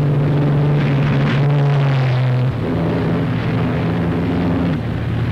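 Open-wheel racing cars' engines running hard at speed, a loud steady drone that drops in pitch about halfway through.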